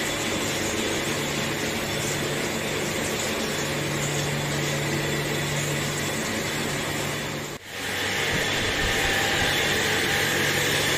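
Steady drone of workshop machinery running, with a faint steady high tone over a low hum. It drops out abruptly for a moment about two-thirds of the way through, then carries on slightly louder.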